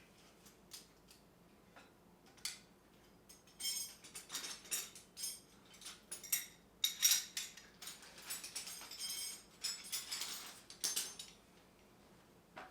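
Metal hand tools clinking and clattering against each other as they are handled and set down, a few light ticks at first, then a busy run of rattling clinks for most of the rest before it settles again near the end.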